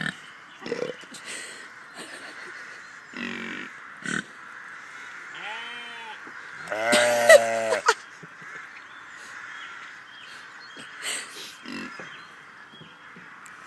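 Boars grunting in short scattered bursts. About seven seconds in comes a long, loud call with a wavering pitch, the loudest sound, just after a quick run of short rising-and-falling calls.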